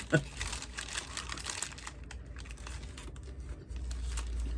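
Small irregular clicks and rustles of close handling, most dense in the first two seconds. A low steady hum comes in near the end.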